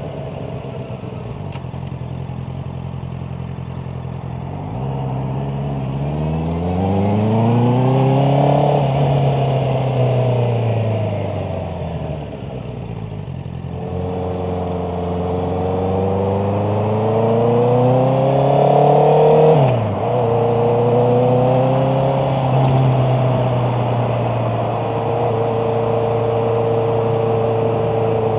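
Honda CBR650R's inline-four engine idling, then revving up as the bike pulls away and easing off again. It accelerates a second time, drops in pitch abruptly at a gear change about twenty seconds in, and settles into a steady drone.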